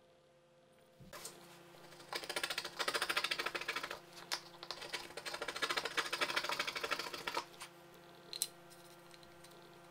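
Wood chisel scraping and paring the bottom of a groove in a plywood block: a fast run of fine, scratchy ticks that starts about two seconds in and stops after about five seconds. A single sharp tap follows near the end.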